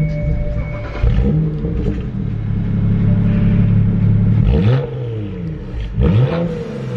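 BMW 335i's N54 twin-turbo straight-six engine being revved: a sharp rev about a second in, revs held up for a few seconds, then quick throttle blips near five and six seconds in.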